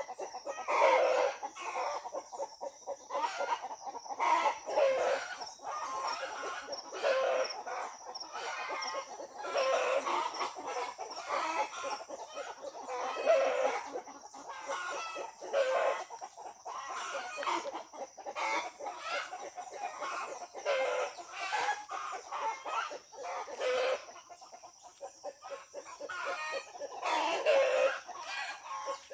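Chickens clucking, with short calls every second or two.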